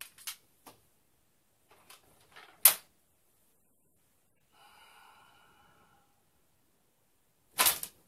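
Replica katana handled in iaido draws: a few light clicks, then a sharp loud clack of blade and scabbard about two and a half seconds in, and a sliding of the blade along the scabbard around the five-second mark. Near the end a loud sudden burst as the sword is snapped out of its scabbard in a fast draw.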